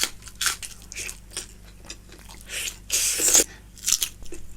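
Close-miked eating sounds: a person biting and chewing, with a series of short crisp crunches, the longest and loudest about three seconds in.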